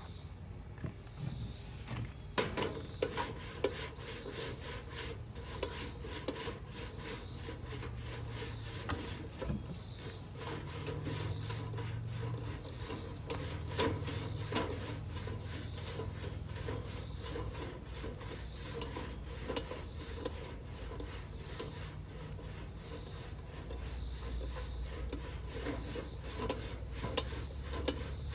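Coleman campfire popcorn popper being shaken slowly back and forth over a fire: a rasping swish about once a second as the unpopped kernels and oil slide inside the pan, with scattered sharp clicks. The kernels are not popping yet.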